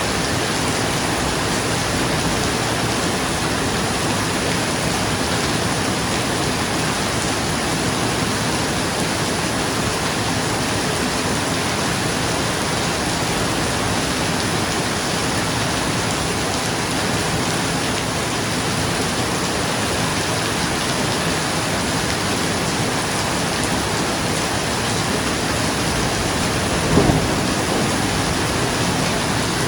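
Steady rain falling on a roof, an even hiss throughout. Near the end there is one brief, louder low crack of thunder.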